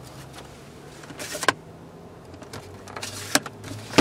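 Car cabin fittings being worked by hand: two short rustling swishes, each ending in a sharp click, about a second and three seconds in.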